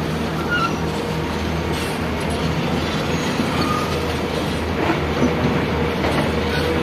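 Excavator's diesel engine running steadily, a constant low hum with a few brief faint squeaks over it.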